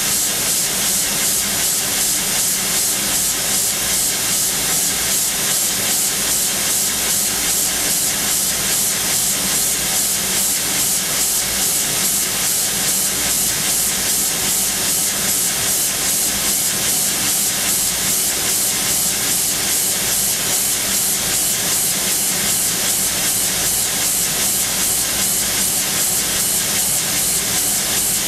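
Sodick machining centre's spindle at 13,000 rpm peck-drilling hardened SKD61 tool steel (50 HRC) with a 1 mm OSG FHL-GDTS three-flute carbide long drill, pecking 0.045 mm at a time. It is a steady high hiss with an even, rapid pulsing from the short pecks.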